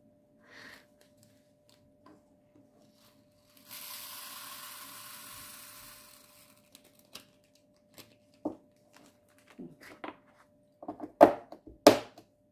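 Tiny resin diamond-painting drills poured from a zip bag into a small plastic storage container, a steady hissing rattle lasting about two and a half seconds. After it come several sharp clicks and knocks of plastic being handled, the loudest near the end.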